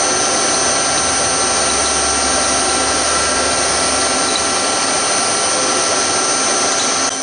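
Milling machine running, its spindle driving a 5 mm end mill while the table is traversed to cut a shallow groove in an aluminium bracket: a steady motor and spindle whine over a constant noise. The level drops slightly near the end.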